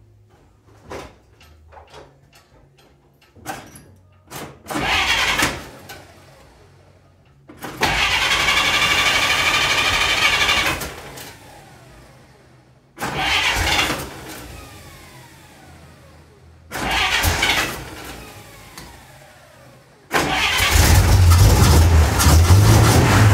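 1946 Dodge Power Wagon's flathead six-cylinder engine being cranked on the starter in four separate tries, just after a tune-up with new points, condenser, cap, rotor and plugs. About 20 seconds in it catches and keeps running loudly.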